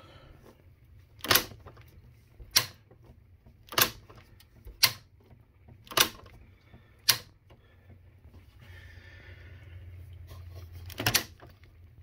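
Refrigerator's double doors clicking, seven sharp clicks about a second apart with a double click near the end, as one door is pushed shut and the other pops open: the doors do not stay sealed against each other.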